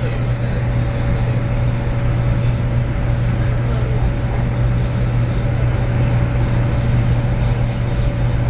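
Cabin noise inside a Taiwan High Speed Rail 700T train running at speed: a steady low rumble with a faint, steady higher hum above it.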